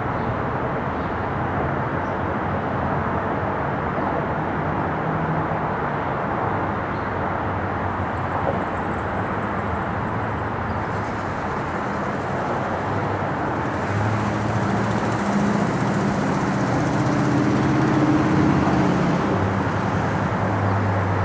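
Steady jet engine noise from a four-engine Airbus A380 on approach with its gear down. It grows a little louder over the last several seconds as the airliner nears.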